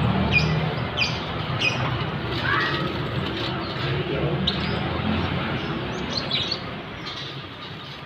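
Caged songbirds in a bird shop chirping: short, high chirps come several times a second over a steady background din, thinning out near the end.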